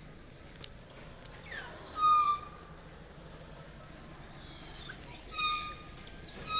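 High-pitched animal calls: a single call sliding down and then held, about two seconds in, followed by a longer run of sliding, whistle-like calls in the second half.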